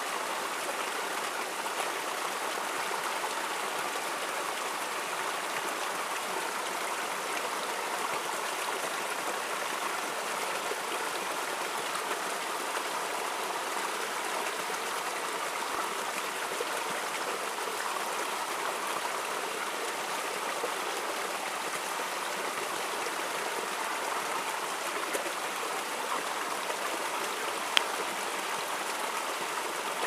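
Small waterfall splashing over rocks into a shallow pool: a steady, unbroken rush of falling and bubbling water, with one sharp click near the end.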